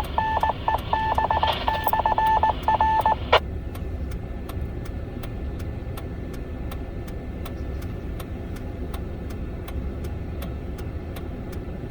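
An amateur radio sounding a single-pitched tone keyed on and off in Morse-like dots and dashes, which stops with a click about three seconds in. After that only the steady low rumble of the vehicle is heard, with faint regular ticks.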